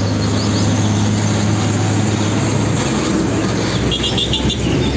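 Diesel engine of an Isuzu fuel tanker truck running steadily as the truck drives past on the road.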